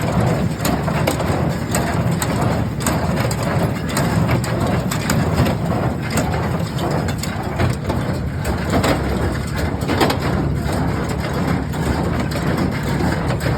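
Ford 532 small square baler running off a tractor, a steady low rumble with frequent irregular knocks and clatter from the baler's moving parts.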